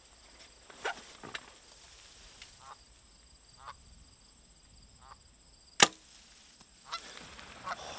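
Canada geese give a few soft, short calls, then a single sharp snap of a bow being shot at them about two-thirds of the way through, the loudest sound. Near the end the geese begin to honk.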